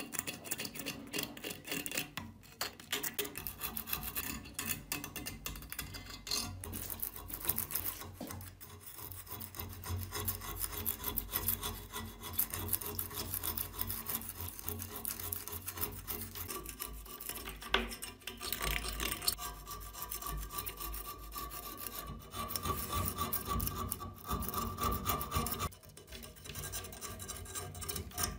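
Steel chisel scraping and chipping thick rust scale off an antique cleaver's iron blade: a long run of short, gritty, irregular scrapes as the crust flakes away.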